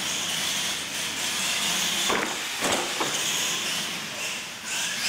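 R/C monster truck driving on a concrete floor: a steady high-pitched whine and hiss from its motor, gears and tyres, with three short knocks about two to three seconds in.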